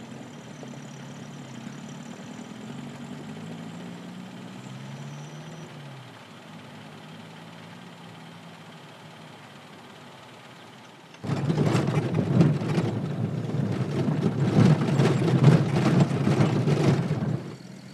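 Car engine running as it drives along a rough dirt track, its pitch rising and falling a few times. About eleven seconds in, a sudden much louder rough rumbling with rattles and knocks starts and runs for about six seconds before dropping away.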